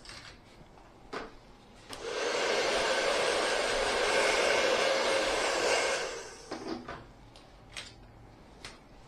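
Hand-held hair dryer blowing a steady blast for about four seconds. It switches on about two seconds in and cuts off about two thirds of the way through, with a few light clicks of handling before and after.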